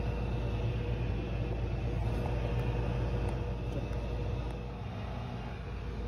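Microwave oven running with a steady low hum, heating a full bowl of water.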